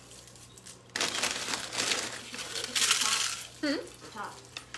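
Nacho Cheese Doritos tortilla chips crushed by hand, a dense crackling crunch from about a second in until past the middle. A brief vocal sound follows near the end.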